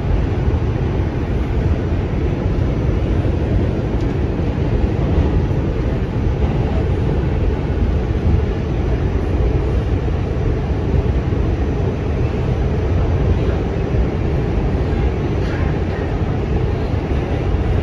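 New York City Subway A train running, heard from inside the car: a steady, loud, low rumble of the wheels on the rails.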